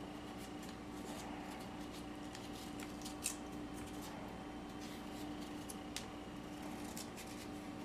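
A small knife peeling the skin off a piece of squash by hand: faint, scattered scraping strokes, a sharper one about three seconds in and another about six seconds in, over a steady faint hum.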